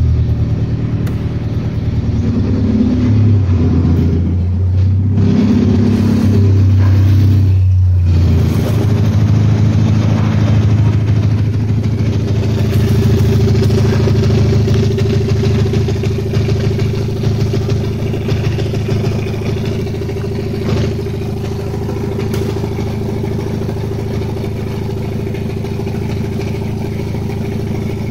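Ford Focus 1.6 Zetec SE (FYDB) 16-valve four-cylinder petrol engine running at idle. Its pitch wavers during the first several seconds, then settles into a steady idle.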